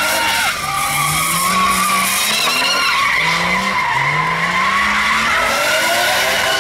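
Nissan Cefiro with a Skyline front end ('Cefline') doing a burnout: the engine revs hard, its pitch rising and falling several times, over a steady high tyre squeal from the spinning rear wheels.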